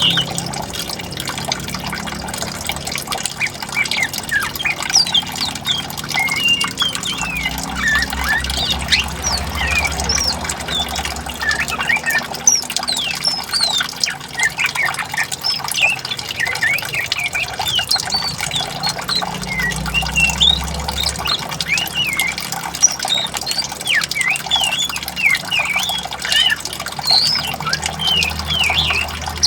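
Many birds chirping and squawking in a dense chorus of short, quick calls, over the steady sound of flowing water.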